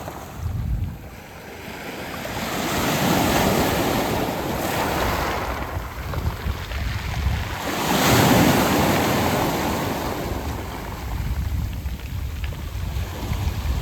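Waves washing onto a beach of round pebbles (mongdol), two surges swelling and falling back, the louder one about eight seconds in. Wind buffets the microphone underneath.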